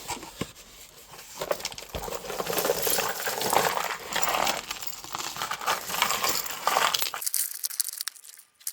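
Small metal jewelry pieces clinking and rattling together as they are handled and sorted, with some crinkling; the handling stops about seven seconds in.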